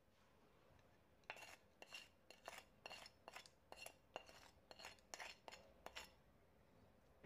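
Wooden spatula scraping a ceramic plate in a quick run of short strokes, about two or three a second, each a brief clink with a little ringing from the plate. It starts about a second in and stops near six seconds.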